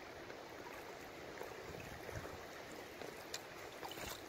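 Steady wash of flowing river water against a packraft drifting downstream, with a couple of small splashes about three and four seconds in.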